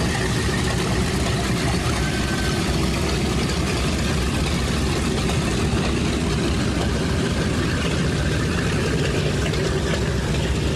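Boeing B-17G Flying Fortress's four Wright R-1820 Cyclone nine-cylinder radial engines running at taxi power, an even, unbroken drone.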